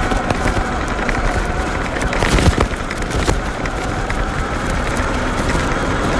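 Sur-Ron electric dirt bike ridden over loose dirt: a steady rush of wind and tyre noise with scattered crackle, a faint electric motor whine, and a louder burst about two seconds in.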